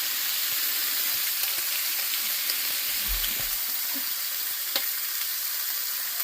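Strips of bacon frying in a hot pan: a steady sizzle with a few small sharp pops of fat.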